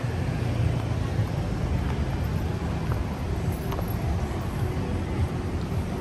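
Outdoor city street noise: a steady, uneven low rumble, as of traffic or wind on the microphone.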